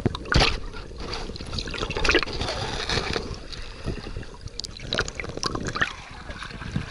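Water sloshing and gurgling around a camera held at the waterline as it goes under and comes back up, with irregular splashes from a dog paddling close by.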